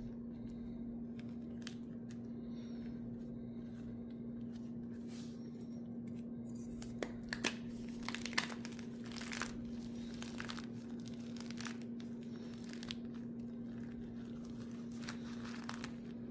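Gym chalk being crushed, crumbling and crunching in irregular strokes, with a few sharper cracks around seven to eight and a half seconds in. A steady low hum sits under it throughout.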